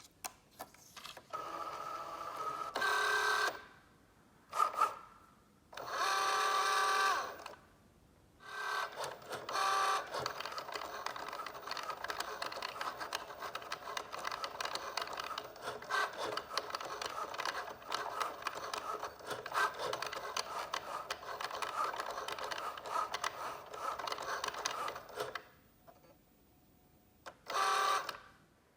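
Cricut Joy smart cutting machine at work on a vinyl decal: short bursts of pitched motor whine as it feeds the material, then about fifteen seconds of continuous buzzy running with rapid ticking as the blade carriage cuts, and one more short motor whine near the end.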